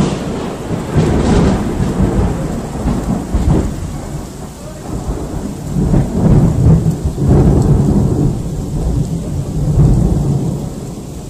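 A sharp thunderclap at the start, followed by long rolling thunder that swells up several times and dies away near the end, with rain falling.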